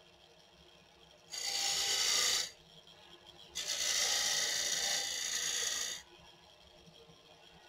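A gouge cutting across the face of a spinning oak blank on a wood lathe: two cuts, the first about a second long starting just over a second in, the second about two and a half seconds long, with only a faint hum between them.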